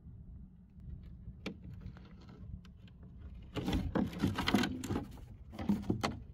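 Footsteps crunching on gravel: a few light clicks, then two bursts of crunching, the first about a second and a half long, the second shorter, over a low steady hum.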